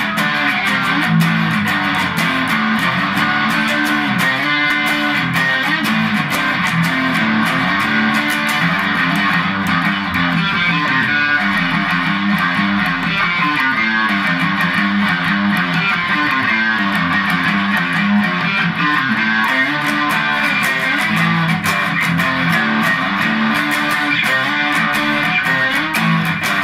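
Stratocaster-style electric guitar being played, notes following one another without a break at an even level.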